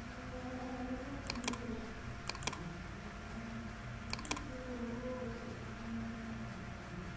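Computer mouse clicked three times, each a quick pair of clicks from the button going down and coming up, over a steady background hum.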